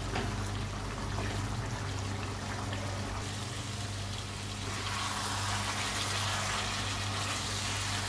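Chicken and baby corn cooking down in a pan with a little water, a steady bubbling hiss over a low steady hum, a little stronger about halfway through.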